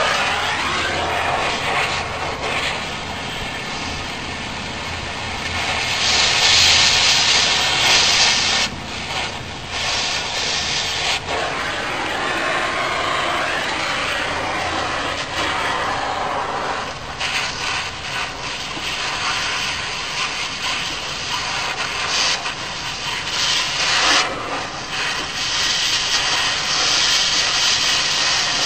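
Oxy-acetylene cutting torch hissing steadily as it cuts at the door hinge of an old truck cab, louder for a few seconds about six seconds in and again near the end.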